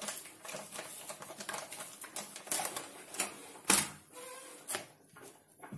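Metal spoon clicking and scraping against a plastic mixing bowl of rice as mixing begins: a run of light irregular taps, with one sharper knock a little under four seconds in.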